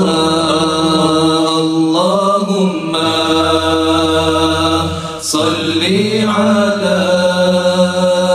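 Men's voices chanting a salawat, a devotional praise song to the Prophet Muhammad, unaccompanied, drawing out long, ornamented held notes with a few short breaths between phrases.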